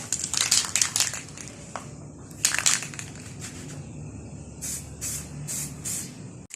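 Aerosol can of high-temperature spray paint being sprayed in a series of short hissing bursts: a cluster at first, one more after a pause, then four quick bursts near the end.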